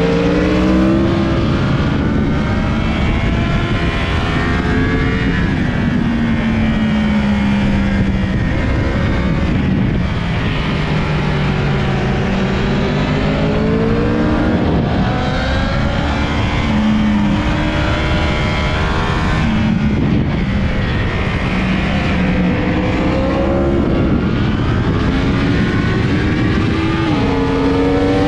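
Yamaha YZF-R1's inline-four engine at racing speed, revs climbing hard and dropping again several times as it accelerates and slows through corners, over steady loud wind rush.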